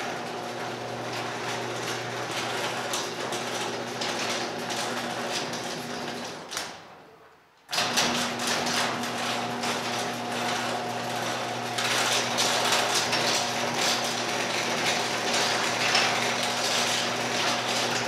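LiftMaster garage door opener running, its motor humming with a rattle from the drive and the sectional door moving on its tracks. It fades out and stops about six to seven seconds in, then starts again abruptly and runs on, a little louder in the later part, while the door comes back down.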